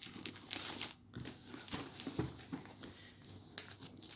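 Protective plastic wrap crinkling and tearing as it is pulled off a cardboard box, in irregular crackly bursts.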